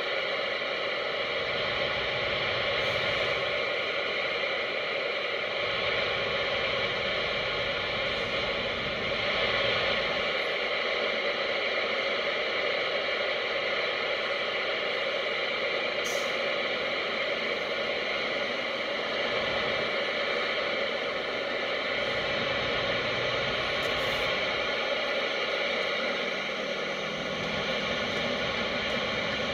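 Steady road noise and hiss inside a moving vehicle's cabin at highway speed, with a low rumble that comes and goes.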